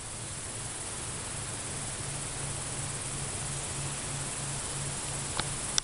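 Steady insect hiss in the woods, with a faint low pulsing about three times a second and two sharp clicks near the end.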